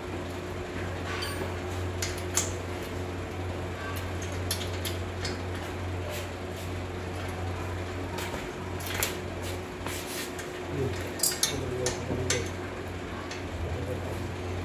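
Scattered light metal clinks and taps of nuts, bolts and washers being handled and fitted while a platform weighing scale's pole is bolted on, over a steady low hum.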